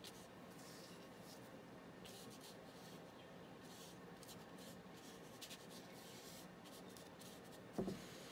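Faint swishing of a paintbrush stroking wet paint onto paper, in irregular strokes, over a low steady room hum. A short soft knock comes near the end.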